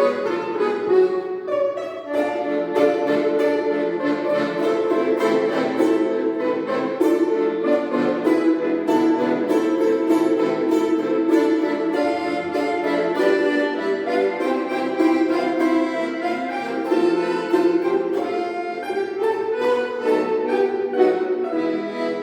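Instrumental trio playing a light, tuneful melody with steady sustained notes and frequent note changes.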